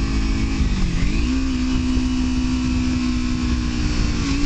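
Kawasaki Ninja 300's parallel-twin engine running under way, heard from the rider's seat over steady wind noise. Its pitch dips about a second in, climbs back and then holds steady.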